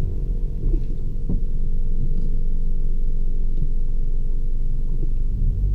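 Cabin sound of a Volkswagen up! TSI's turbocharged three-cylinder engine and road rumble while driving at speed, with a few faint pops. Near the end the level drops and the engine settles into a steadier low hum as it falters; the driver puts this down to a misfire and backfire, in the third cylinder according to the title.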